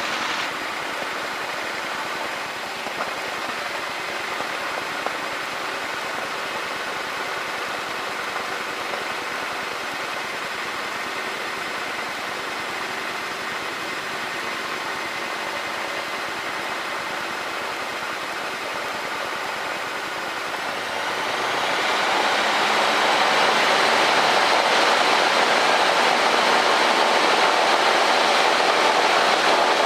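Cessna 152's four-cylinder Lycoming engine running steadily at low power, then opened up about two-thirds of the way through: its pitch rises and it gets clearly louder, holding at full power for the takeoff run.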